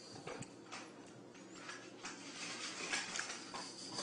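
Quiet room tone with a few faint, soft taps and clicks.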